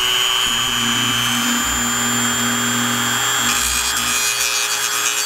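Handheld high-speed rotary tool running with a steady high whine while grinding a black plastic trim part. The sound turns grittier about three and a half seconds in.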